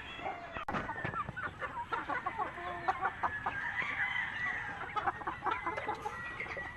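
Flock of native chickens clucking and chirping, with a rooster crowing about four seconds in.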